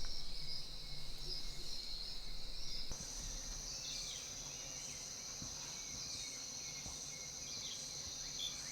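Chorus of jungle insects, a high pulsing trill that changes about three seconds in to a higher, even drone, with a few faint bird calls.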